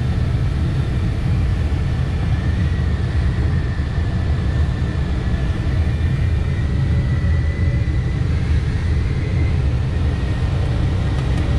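Steady rush of airflow around a glider cockpit in flight, strongest in the low end, with a faint, slightly wavering high tone running through it.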